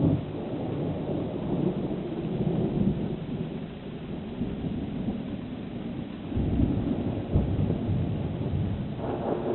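Thunder rolling and rumbling for several seconds in waves, swelling again about six seconds in.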